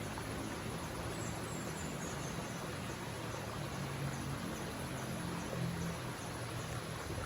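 Steady rush of a flowing river, with faint high chirps repeating at an even pace over it.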